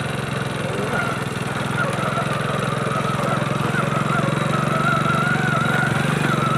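Small motorcycle engine of a saleng (motorcycle with sidecar) running steadily while it is ridden, with a thin wavering whine above it from about a second in.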